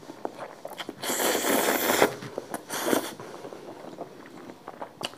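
A person slurping spicy instant noodles, with one long slurp about a second in and a shorter one near the middle, and wet chewing and small clicks between.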